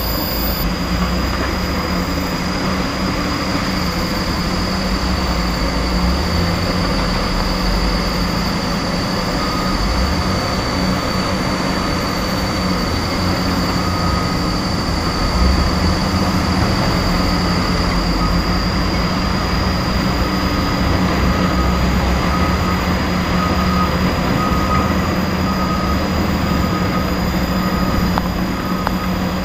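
Diesel dump trucks and heavy earthmoving machinery running together in a steady low rumble, with a faint repeated beeping through the middle.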